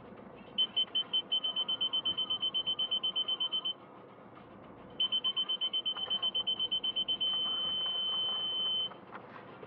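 Electromagnetic parking sensor warning beeper sounding as the car reverses toward an obstacle: rapid high beeps that stop for about a second, then start again, quicken and merge into one continuous tone near the end, the signal that the obstacle is very close.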